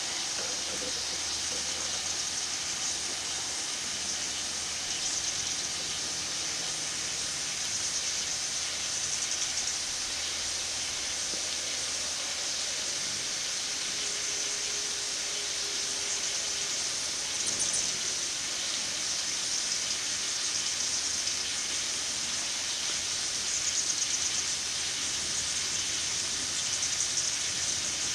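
Steady hiss of water spraying from garden watering, swelling slightly now and then.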